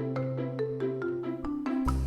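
Background music: a light, plucky tune with a run of notes stepping downward, and a new rhythmic section with a pulsing bass starting at the very end.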